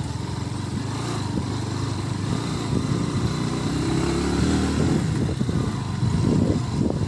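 Motorcycle engine running at low speed on a rough dirt road, its note becoming more uneven and a little louder from about halfway through.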